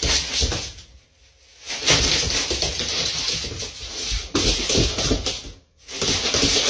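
A black plastic garbage bag being shaken and flapped open, rustling and crackling in stretches, with a pause about a second in and another near the end.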